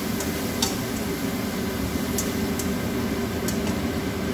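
Food stir-frying in a nonstick frying pan, the spatula giving a few short sharp clicks against the pan, over a steady low hum.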